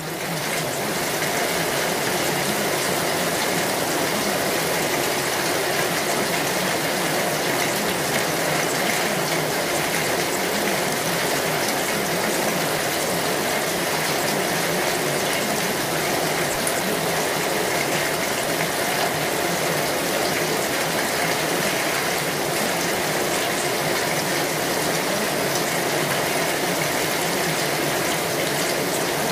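Steady, unbroken rushing water noise, like a gushing stream or heavy running water, fading in over the first second and then holding level with no rhythm or pauses.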